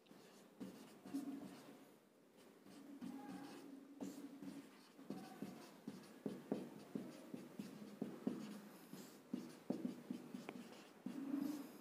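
Marker pen writing on a whiteboard: faint squeaks and short scratchy strokes as words are written, coming quicker and more often from about four seconds in.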